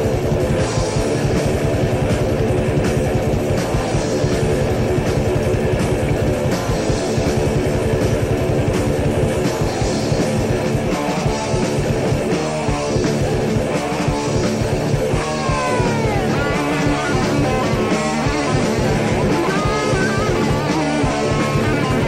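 Heavy metal band recording from a 1987 demo tape: distorted electric guitars, bass and fast, busy drums playing at full volume. In the second half, high guitar notes slide downward in pitch several times.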